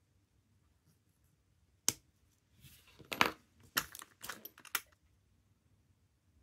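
Watch hand-removal levers clicking and tapping against the hands and movement of a Seiko 6138 chronograph, with the plastic dial-protector sheet crinkling. One sharp click about two seconds in, then a quick run of small clicks mixed with rustling that stops about five seconds in.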